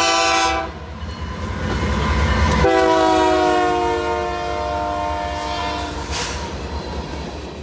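Diesel freight locomotive's multi-note air horn: a short blast, then a longer blast of about three seconds that drops slightly in pitch, over the low rumble of the train's engines.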